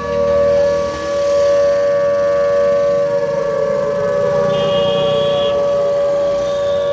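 Public alert siren sounding a long, steady wail with a second tone sliding slowly lower in the latter half. It is the warning signal of an alert.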